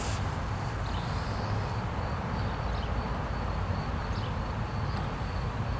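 Steady outdoor background noise with a low rumble and a faint, high, steady whine over it.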